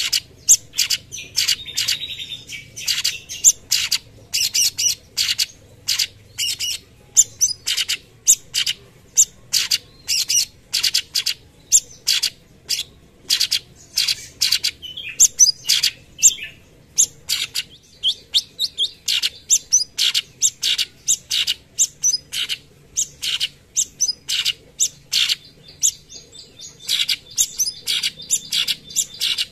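Orange-bellied leafbird (cucak cungkok) singing its 'tembakan' song, a rapid, unbroken run of short, sharp, high notes, about two to three a second, with only brief pauses.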